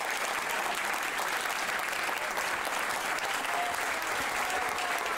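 A crowd of people applauding, many hands clapping steadily together.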